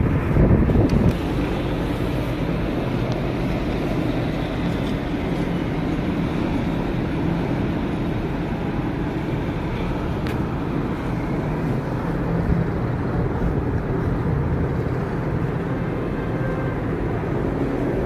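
Steady low rumbling background noise with a faint hum, a little louder in the first second.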